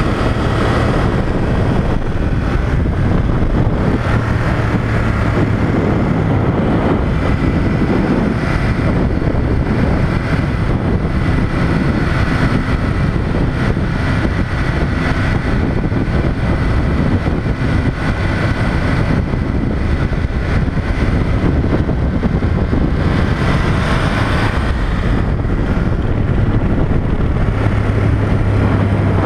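Ducati Monster 1200 S L-twin engine running at a steady cruise, mixed with heavy wind rush over the microphone.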